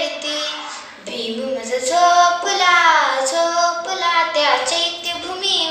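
A young girl singing a Marathi song solo, in long held notes that slide up and down in pitch.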